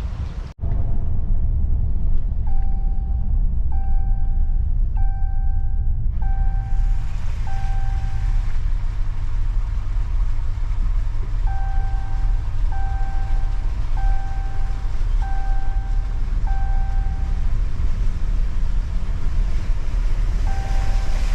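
Inside a moving vehicle: steady low road and engine rumble, with the car's warning chime beeping at one steady pitch in runs of about five beeps, roughly one a second, with pauses of a few seconds between runs.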